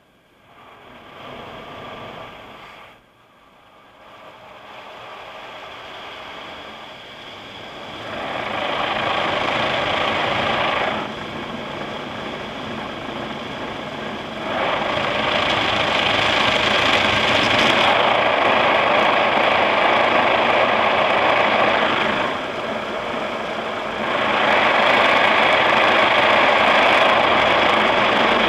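Automatic car wash's rotating brushes scrubbing over the car, heard from inside the cabin: a dense churning, swishing noise that builds in stages over the first several seconds, then runs loud in long stretches with a few brief dips.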